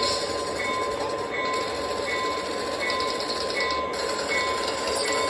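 O gauge model trains running on FasTrack three-rail track: a steady motor hum and wheel rumble with fine clicking, and a short high tone repeating about every 0.8 seconds.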